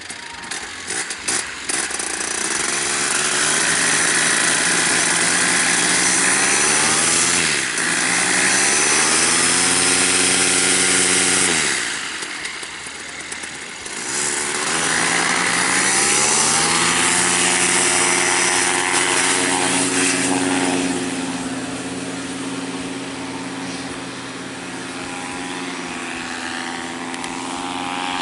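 Paramotor's backpack engine and propeller, revving up from idle to high power about two seconds in, briefly throttled back to low revs around twelve seconds, then held at full power through the running takeoff. From about twenty seconds on it grows steadily softer as the paramotor climbs away.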